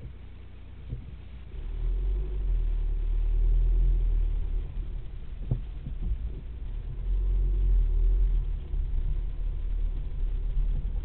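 Car engine and tyres rumbling from inside the cabin as the car pulls away about one and a half seconds in and drives slowly over the rough grass, with a sharp knock at the start and another about five and a half seconds in.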